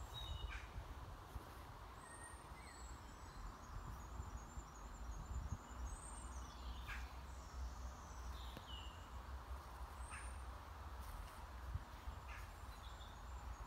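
Faint birdsong: scattered short chirps and gliding calls over a steady low rumble.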